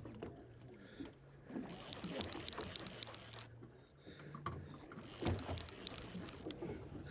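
Sounds of a boat at sea: a steady low engine hum under washes of water noise, with scattered knocks and clicks, the loudest about five seconds in.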